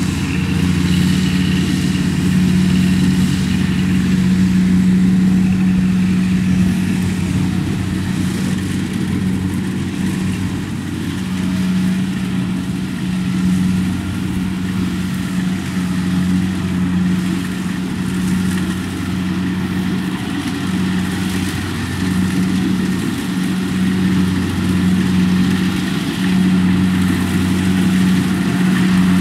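Diesel engines of a tracked rice transporter and a Kubota DC70 combine harvester running steadily under load in a muddy paddy. The low, even drone takes on a slight regular pulsing from about a third of the way through.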